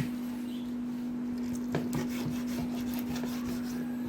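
Knife cutting chicken thighs into cubes on a cutting board, with a couple of light knocks about two seconds in, over a steady low hum.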